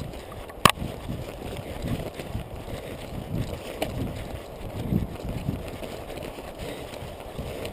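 A runner's footfalls through forest undergrowth, picked up by a chest-mounted GoPro HD Hero2: irregular dull thumps with rustling and brushing of shrubs, and one sharp click a little under a second in.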